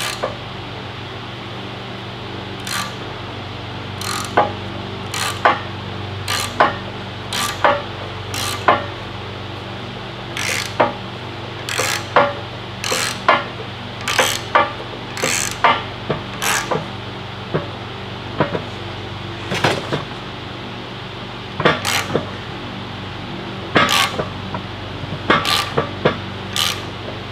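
Ratchet and socket on a Dana 60 axle's pinion nut, worked stroke by stroke: irregular metallic clacks roughly once a second, with a lull in the middle. The turning pinion drags a shop rag through the ring gear to push the differential carrier out of the housing. A steady low hum runs underneath.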